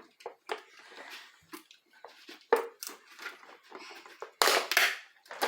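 Hands opening a plastic surprise-toy package: scattered clicks and crinkling, with a louder rustling stretch about four and a half seconds in.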